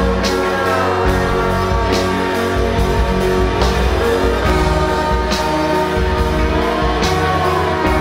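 Post-rock band playing live: electric guitar and bass holding dense, sustained chords, with a cymbal hit about every second and a half. A sliding melody line glides up and down over it, twice.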